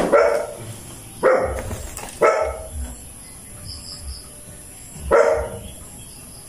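A dog barking in several short, separate barks, spaced a second or more apart.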